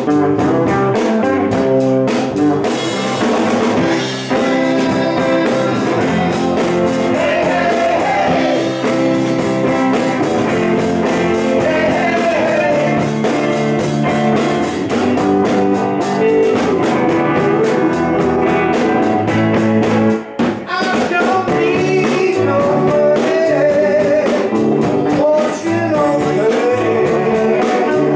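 Live band playing a blues-rock number with electric guitars, drum kit and singing. About two-thirds of the way through, the music stops for a moment, then goes on.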